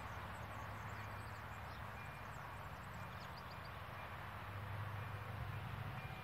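Steady outdoor hiss with faint bird chirps in the first half, and a low rumble that grows over the last second or two as a train approaches the level crossing.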